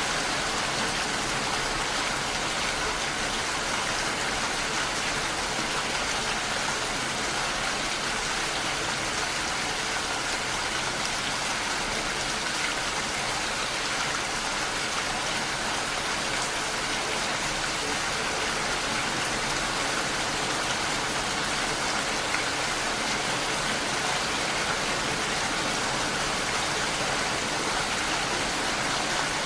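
Steady rain falling, an even hiss with fine patter of drops.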